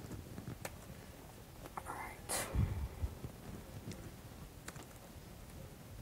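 Quiet room tone with a few faint, sharp laptop clicks spread through it, and a brief whispered mutter and breath about two seconds in.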